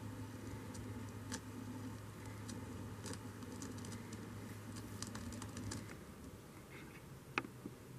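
Turntable stylus riding the run-out groove of a vinyl LP after the last track: faint surface hiss and a low hum, with scattered crackles and small clicks, the sharpest about seven seconds in.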